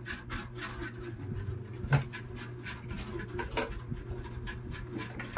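Clear plastic wrapping crinkling and rustling as a solar floodlight is handled, in many short crackles with a sharper knock about two seconds in, over a steady low hum.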